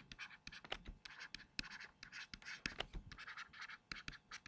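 Faint stylus scratching and tapping on a tablet screen as words are handwritten: a run of quick strokes and short ticks.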